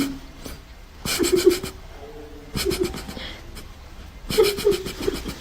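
An animal calling three times, about a second and a half apart, each call short and pulsing.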